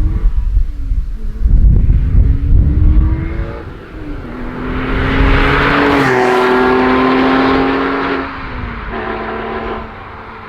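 Porsche 911 Carrera S 3.8-litre flat-six under hard acceleration. The engine note climbs in pitch, drops sharply at a gear change about four seconds in, climbs and holds loudest through the middle, then falls away near the end. Gusty wind rumble on the microphone in the first few seconds.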